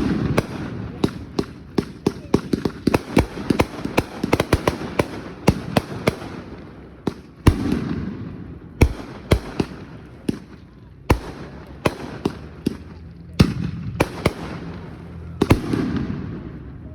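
Fireworks going off: a rapid, irregular volley of sharp bangs and cracks, most closely packed in the first several seconds, then louder single booms a second or two apart.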